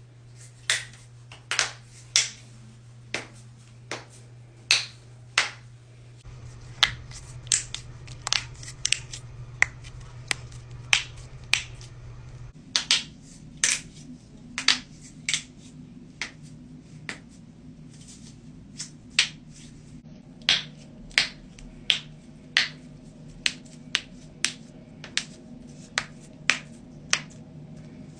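Knuckles being cracked: a long series of sharp single pops, irregularly spaced at about one to two a second, over a steady low hum.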